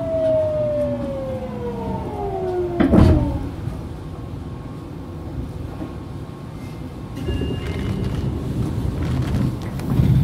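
Fukuoka City Subway 2000-series train braking: the traction motor whine falls steadily in pitch over the first three seconds, then a loud short burst of noise as it comes to a halt. A brief beep and a low rumble follow later on.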